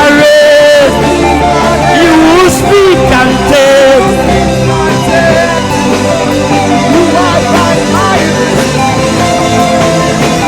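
Live gospel worship music: instruments holding steady sustained chords while a solo voice sings drawn-out, sliding phrases that come and go.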